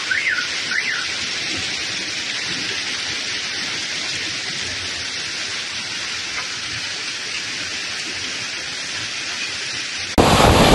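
Heavy rain pouring down in a steady hiss. At the start, an alarm wails up and down three times, ending about a second in.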